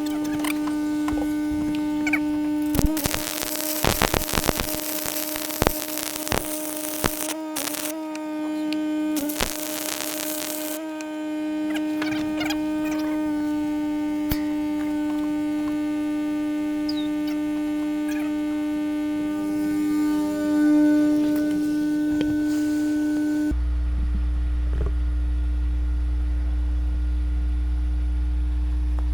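Steady electrical hum with a crackling welding arc for several seconds, then a low rumble that starts suddenly near the end.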